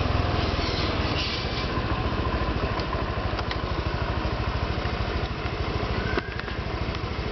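Honda Vario 125 PGM-FI scooter's single-cylinder engine running, fitted with a larger stainless-steel muffler neck, with a rapid, even low pulse. It eases off over the first couple of seconds and drops a little quieter about six seconds in.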